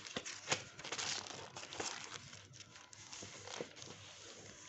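Clear plastic sheeting over painted cloth crinkling and rustling as it is handled, with irregular small crackles.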